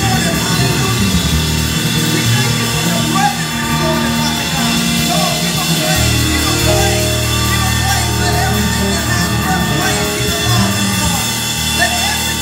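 Live band playing: a drum kit with cymbals and an electric bass guitar, together with other held instrument tones.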